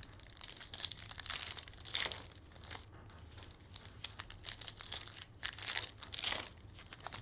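Foil wrappers of 2023 Bowman Hobby baseball card packs being torn open and crinkled by hand, in irregular crackling bursts.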